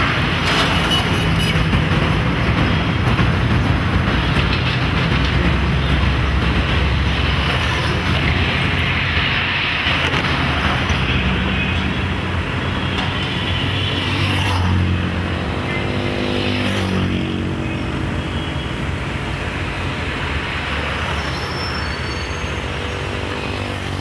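Recorded city traffic soundscape played over a hall's speakers: steady vehicle and road noise with a low rumble and a hiss. Around the middle a tone falls in pitch, like a vehicle passing.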